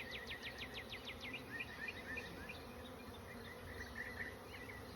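Honeybees buzzing over an opened hive, a faint steady hum. Over it, a fast high trill of about ten notes a second in the first second and a half, then scattered short high chirps.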